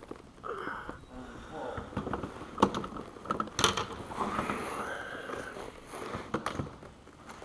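Handling noise as a freshly caught crappie is held and unhooked in a plastic kayak: a few sharp clicks and knocks scattered through, the loudest two a second apart near the middle.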